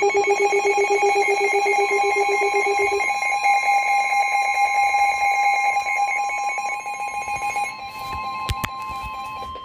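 Emergency alert tones from a NOAA Weather Radio: several steady electronic tones sound together with a fast buzzy beat. The lowest drops out about three seconds in, while a single higher steady tone, the weather radio's warning alarm, carries on to the end. A sharp click comes near the end.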